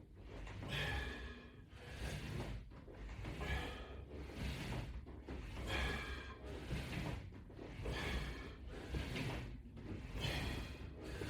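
Ab roller wheel rolling out and back across the floor in steady repetitions, about one rep every two seconds, with heavy exercise breathing.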